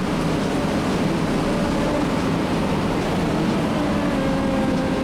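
A moving vehicle's steady running rumble, with a faint tone that sinks slightly near the end.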